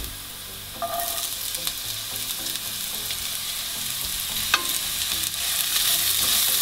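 Chopped onion going into hot oil with frying garlic: the sizzle jumps louder about a second in and carries on steadily. A wooden spatula stirs the pan, with one sharp tap against it.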